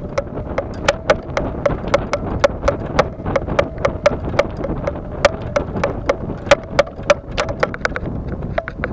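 Golf clubs rattling and clinking against each other in the bag on a moving golf cart, an irregular run of sharp knocks about four or five a second.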